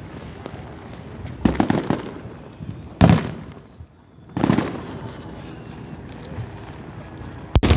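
Fireworks shells bursting: four sharp bangs about a second and a half apart, with a short crackle after some of them. The last bang, near the end, is the sharpest.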